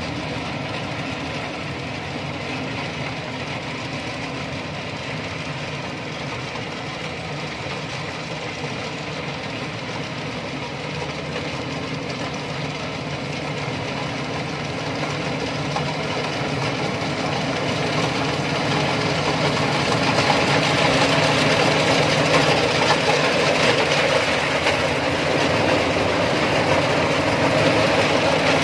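ISEKI rice combine harvester's diesel engine running steadily, growing louder about halfway through.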